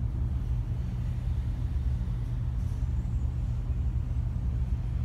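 Air conditioning running with a steady low rumble.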